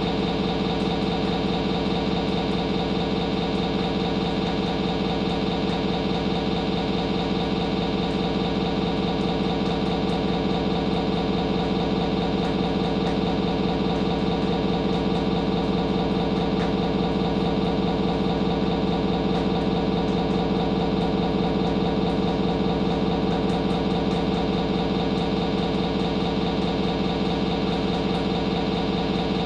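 An engine idling at a steady, unchanging speed.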